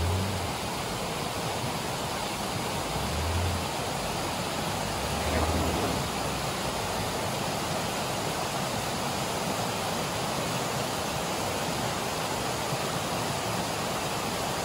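Mountain creek rushing steadily over a small cascade of rocks and logs, with a few soft low thumps in the first six seconds.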